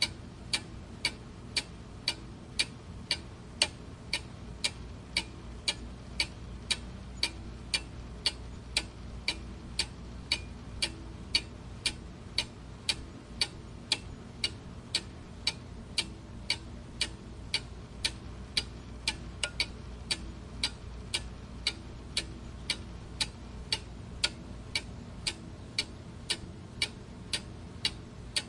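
Clock ticking steadily, about two even ticks a second, over a faint low hum.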